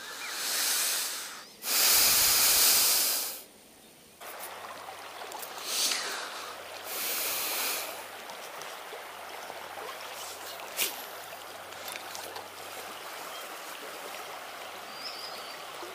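Steady rush of flowing water from a shallow, rippling river, with a few loud hissing bursts in the first three and a half seconds before a short gap.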